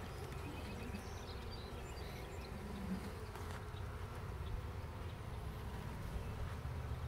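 Swarm of honeybees buzzing as a steady hum around an opened hive while a brood frame is lifted out.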